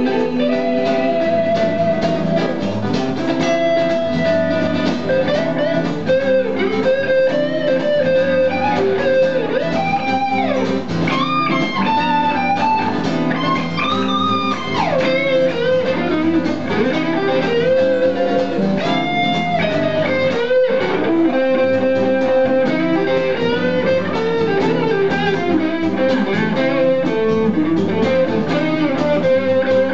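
Live instrumental guitar passage: an electric guitar plays a blues-style lead line with bent notes over a strummed acoustic guitar, with no singing.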